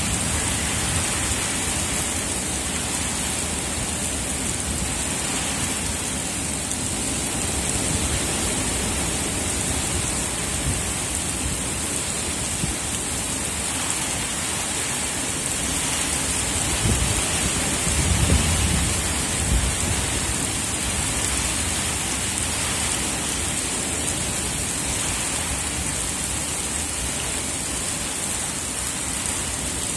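Heavy rain falling steadily in a downpour. About two-thirds of the way in, a low rumble swells and fades.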